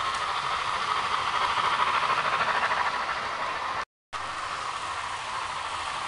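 DCC sound decoder in a Bachmann OO-gauge Peppercorn A1 Pacific model steam locomotive playing a steady steam hiss while the train runs, with the model's wheels rolling on the track. The sound drops out for a moment about four seconds in.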